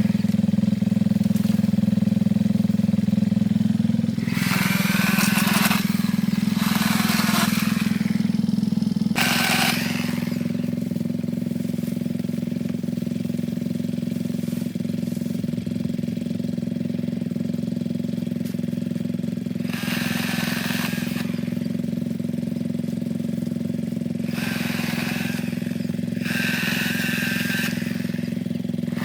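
Ryobi 18-volt battery chainsaw running steadily, with several louder stretches of about a second, about 4, 7, 9, 20 and 25 seconds in, as the chain bites into wood.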